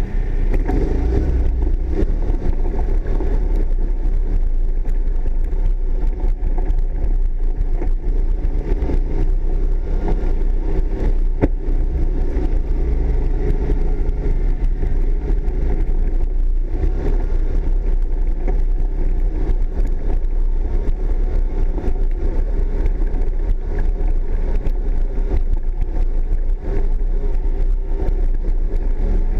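Yamaha ATV engine running steadily at low trail speed over rocks and ruts, with occasional knocks from the bumps.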